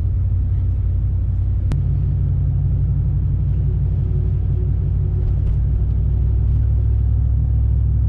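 Steady low rumble of a pickup truck driving along an icy, snow-covered highway at about 40 mph, heard from inside the cab: engine, tyre and wind noise together. A single sharp click about two seconds in.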